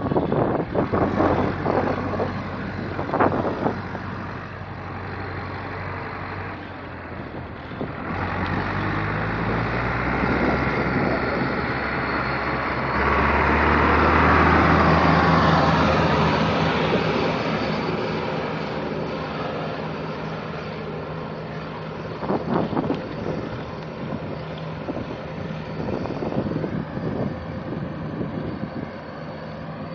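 Wind buffeting the microphone during a bicycle ride. A motor vehicle passes close by: its engine hum and tyre noise swell to a peak about halfway through, then fade away.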